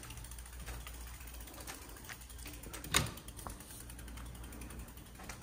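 Rear freewheel of a Vitilan i7 Pro ebike ratcheting in a run of light ticks as the bike rolls along without pedalling, with one louder knock about three seconds in.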